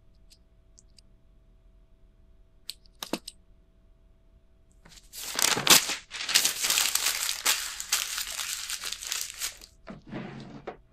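A few light clicks, then paper being torn and crumpled for about five seconds, the loudest sound here. Near the end comes a short rustling scrape as a desk drawer is pulled open.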